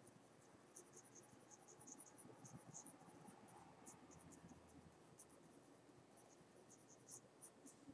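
Mechanical pencil lightly shading on paper: a faint, irregular run of short scratchy strokes, several a second.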